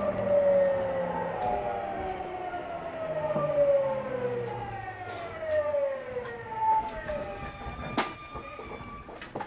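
Tokyu 9000 series electric train heard from inside a motor car: the VVVF inverter and traction motors whine in several stacked tones that keep falling in pitch as the train slows. A sharp click comes near the end.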